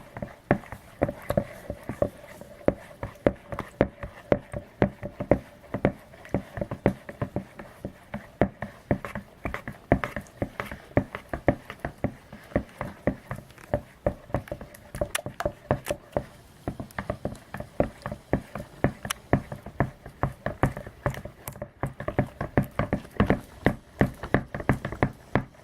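A mixing tool stirring glue and water in a bowl, ticking and scraping against the bowl about three times a second in a steady rhythm. The mixture is being stirred until the glue is fully dissolved and smooth.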